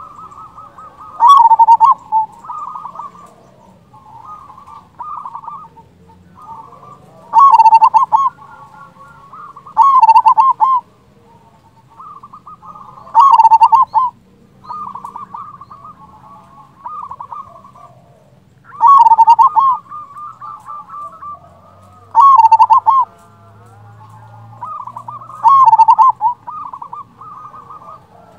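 Local zebra dove (perkutut) singing: seven loud rolling coo phrases every few seconds, with softer trilling coos between them.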